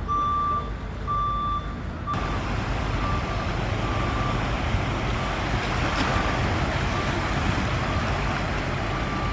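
A vehicle's reversing alarm beeping about once a second, with one steady pitch. It is loud at first and fainter from about two seconds in, when a steady rushing noise sets in under it.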